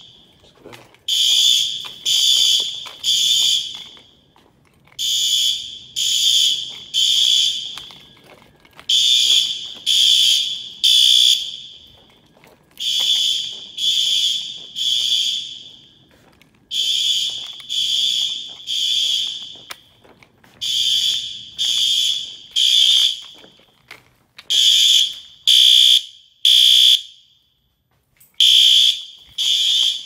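System Sensor SpectrAlert Advance fire alarm horns sounding in the temporal-three evacuation pattern, driven by a Notifier NFS-320 panel during a system test. Each group is three loud, shrill blasts of about half a second, and the groups repeat about every four seconds.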